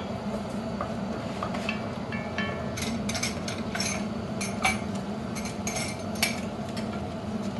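Teaspoon clinking and tapping in a ceramic mug as stock cubes are crumbled and stirred in: scattered short clicks, more of them in the second half, over a steady low hum.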